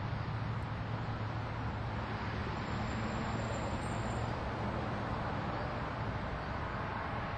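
Steady road traffic noise: a constant low rumble with a hiss over it.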